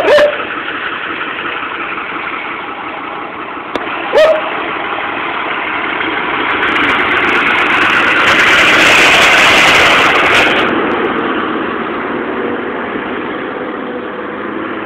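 Fiatagri 140-90 tractor's diesel engine running as the tractor drives past close by, growing louder to its peak about nine seconds in and then fading. Two brief sharp sounds cut in, one at the start and one about four seconds in.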